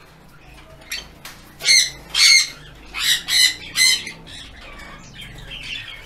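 Sun conures squawking: about five short, high-pitched calls in quick succession between about two and four seconds in.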